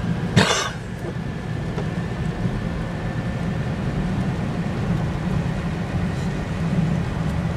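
Steady low road and engine rumble heard from inside a moving car's cabin, with one brief, sharp noisy burst about half a second in.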